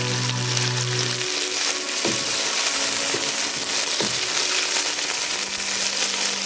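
Chicken pieces frying in mustard oil in a karahi, a steady sizzle as the meat is roasted until it changes colour.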